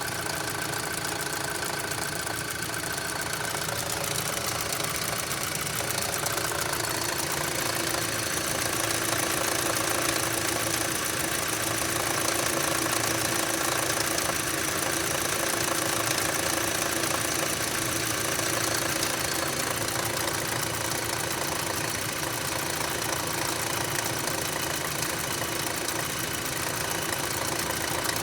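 2006 Audi A3 2.0-litre engine running steadily with a continuous rapid knocking noise that cleaning out the oil sump has not cured.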